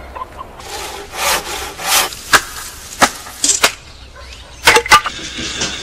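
Wood being cut by hand: a couple of rasping strokes about a second in, then a series of sharp knocks as a hand tool chops into a wooden stake.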